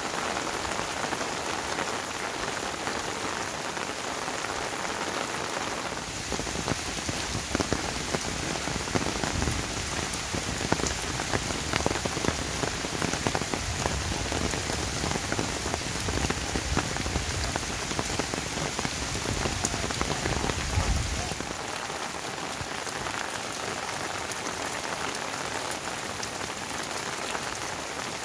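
Heavy rain pouring steadily. From about six seconds in until about twenty-one seconds, close drops hit harder and sharper, with a deeper rumble underneath.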